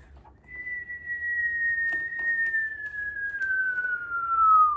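A person whistling one long, clear note that starts high and slides slowly downward.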